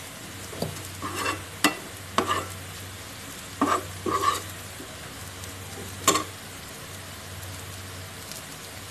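Steel spoon scraping and knocking against a non-stick frying pan as onions, ginger and garlic are stirred, over a steady sizzle of frying in coconut oil. The spoon strokes come in short clusters and stop about six seconds in, leaving the sizzle and a faint low hum.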